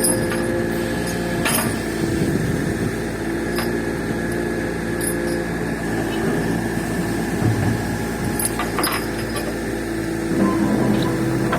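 Komatsu PC200-6 excavator's turbocharged six-cylinder 6D105 diesel engine running steadily during a performance check after overhaul, with a few sharp metallic knocks.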